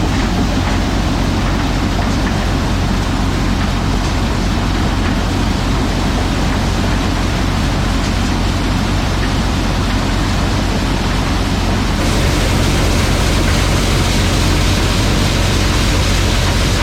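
White 1210 corn sheller running steadily while shelling cob corn: a dense, even hiss over a constant low machine hum. The upper part of the hiss shifts slightly about twelve seconds in.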